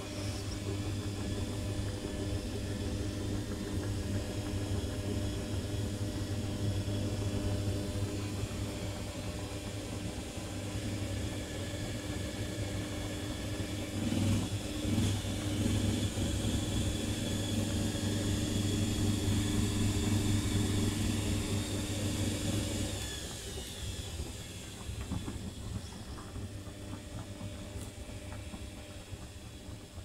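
Currys Essentials front-loading washing machine tumbling its drum through sudsy wash water: a steady motor hum with water swishing. The motor stops about three-quarters of the way through, and the water goes on sloshing faintly.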